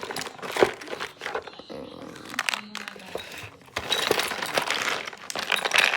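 Plastic packaging crinkling and rustling as it is handled, with scattered small clicks and knocks.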